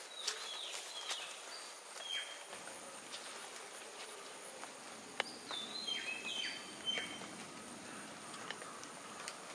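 Birds giving short whistled calls that drop in pitch, a couple about a second in and a cluster at about five to seven seconds, over a steady high-pitched insect drone. Scattered sharp ticks of water drops falling from the wet leaves of the plantation.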